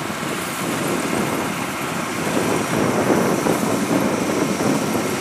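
Kubota DC93 combine harvester running steadily as it cuts rice that has been flattened into standing water.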